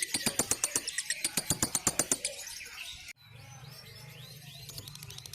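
Lovebird's long chattering trill (ngekek), a rapid run of sharp notes at about ten a second that stops about two seconds in. After a sudden break come softer gliding chirps over a low steady hum.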